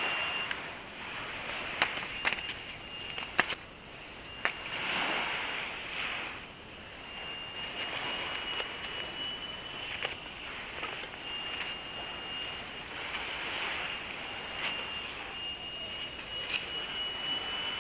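Steady high-pitched buzzing of forest insects, coming in stretches of one to three seconds, with scattered clicks and rustling as a backpack is handled.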